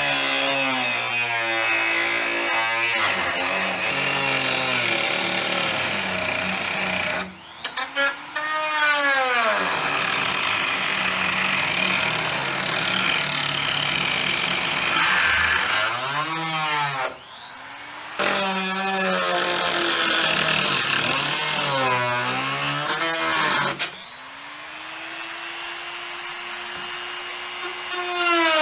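Small high-speed rotary tool with a cut-off disc, its motor whining as it cuts into the hood's plastic. The pitch sags and recovers over and over as the disc bites and eases off, and the tool stops briefly twice.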